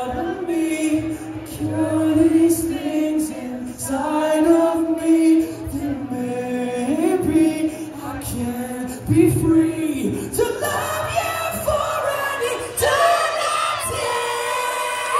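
Live rock band's singer holding a slow sung melody over a sparse, sustained backing. From about ten seconds in the song ends and the crowd cheers and screams.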